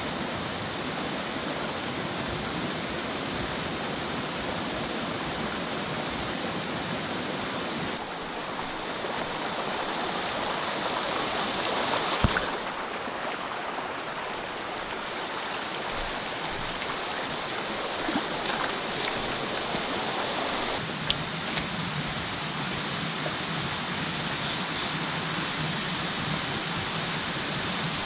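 Shallow rocky stream running: a steady rush of water over stones, with a few brief knocks.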